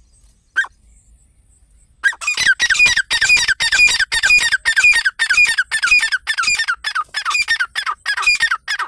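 Teetar partridge calling: a single short note, then from about two seconds in a fast, loud series of harsh repeated notes, about two or three a second.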